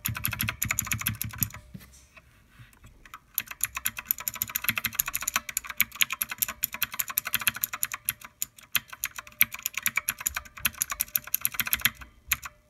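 Fast typing on a Redragon Kumara mechanical keyboard fitted with black pudding keycaps with O-rings under them: a quick flurry of key clicks, a pause of about a second and a half, then steady rapid typing that stops near the end.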